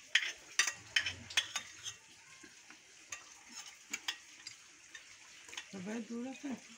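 Forks and spoons clicking and scraping against plates and a metal cooking pan while eating, in quick sharp ticks that thin out after the first couple of seconds. A short voiced sound comes in near the end.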